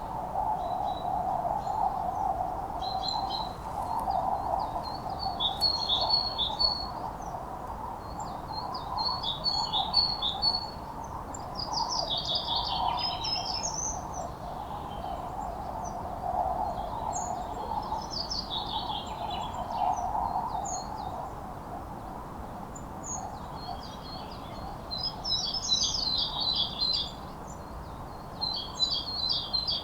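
Songbirds singing short, repeated trilling phrases every few seconds, over a steady background noise.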